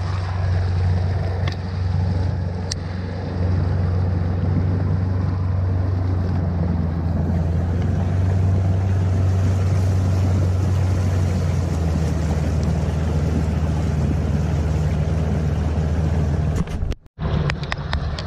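A small boat's motor running steadily under way, with wind and water noise; the sound drops out for a moment near the end.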